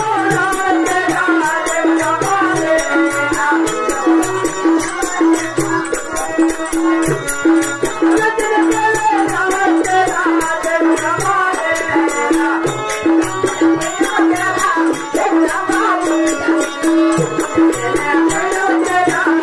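Live folk-drama accompaniment: a harmonium plays a wavering melody over a steady drone, with a hand drum beating a regular rhythm and small cymbals jingling.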